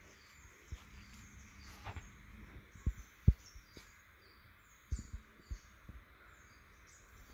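Small birds chirping in short high notes repeated about every half second over a faint outdoor hiss, with irregular low thumps, the loudest about three seconds in and a quick pair about five seconds in.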